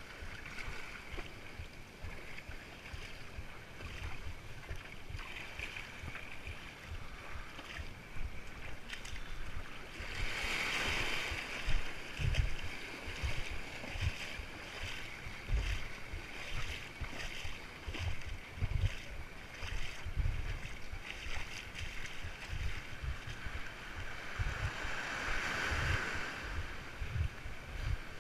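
Shallow surf washing and sloshing around people wading, with wind buffeting the microphone in low thumps. Two louder rushing swells come about ten seconds in and again near the end.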